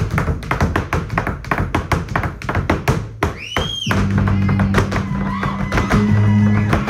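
Flamenco dance footwork: heeled shoes stamping and tapping on a wooden stage in rapid, uneven strikes, starting abruptly, with percussion beneath. About halfway a brief high call rises and falls, and about four seconds in a steady low held note joins the rhythm.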